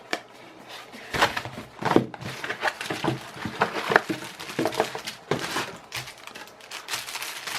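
Unboxing a shotgun microphone: the box being opened and its packaging rustled and crinkled by hand, with small irregular knocks and scrapes.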